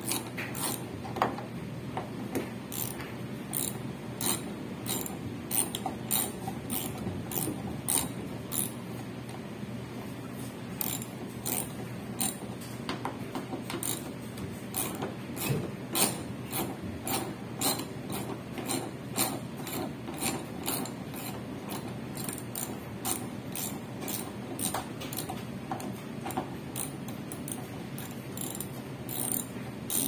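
A mechanism running with a steady low hum and irregular sharp clicks, about one or two a second.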